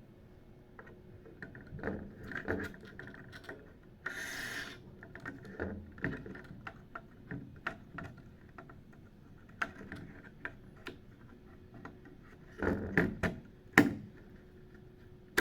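Hands handling computer hardware: scattered small clicks, taps and light rubbing, with a brief scrape about four seconds in and a cluster of knocks near the end, one of them a sharp click.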